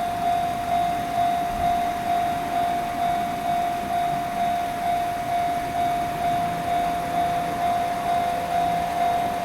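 Japanese level-crossing warning bell ringing its electronic "kan-kan" tone in an even, steady rhythm of about one and a half strikes a second, the signal that a train is approaching and the barriers are down.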